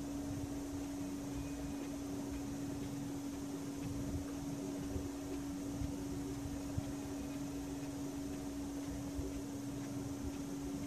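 Steady hum holding one constant low tone over an even hiss, with a few faint ticks.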